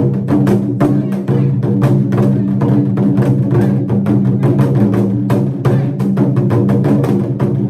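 Japanese taiko drum beaten with wooden sticks in a fast, unbroken rhythm of sharp strokes, several a second, with the drum's low ringing tone sustained beneath.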